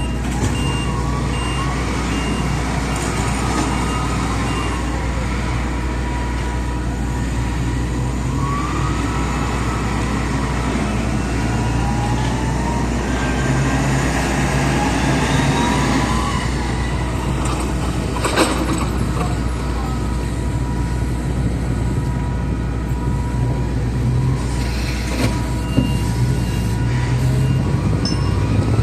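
Engines of cargo-handling vehicles running steadily during ship loading, with pitch rising and falling as they work. A reversing beeper sounds twice, and there is one sharp clank about two-thirds through.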